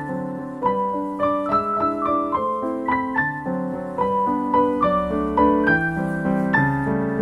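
Background piano music: a steady run of light notes, about three a second.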